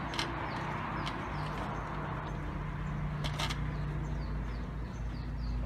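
A bird chirping over and over, short high falling chirps about two to three a second, over a steady low hum. Two brief clicks, about a quarter second in and about three seconds in.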